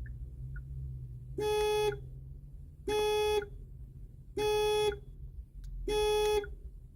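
A Hyundai Santa Fe's warning chime sounding four times, one steady tone of about half a second repeated every second and a half, over a low steady hum.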